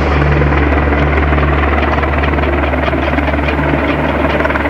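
Military helicopter running close by, loud and steady: a deep low hum from the rotor and engines under a wide rushing noise.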